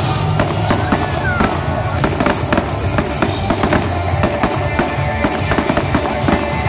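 Fireworks display: many aerial shells bursting and crackling in quick succession over loud music.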